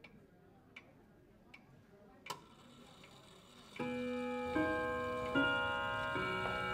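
A clock ticking slowly, about one tick every three-quarters of a second, the fourth tick the loudest. About four seconds in, music enters with held chords that change roughly once a second.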